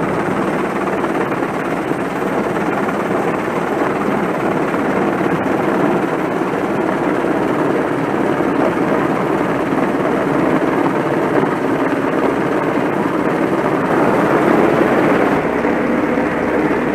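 EH101 Merlin rescue helicopter hovering low overhead, a loud, steady, dense rush of rotor and turbine noise mixed with the wind of its downwash.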